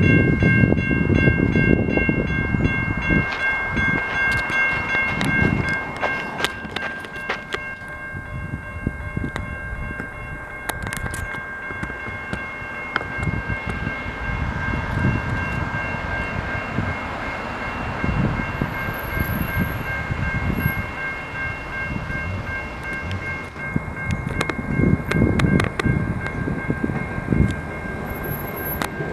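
Railway level-crossing warning bells ringing steadily with the boom gates down, signalling an approaching train. Irregular low rumbles sound underneath.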